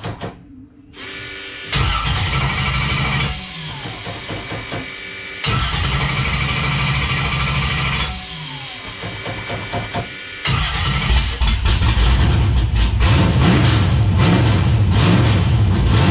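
The 1995 Camaro's naturally aspirated LS 6.0 V8 running, brought up to higher revs in three spells with the pitch falling back between them, loudest from about ten seconds in.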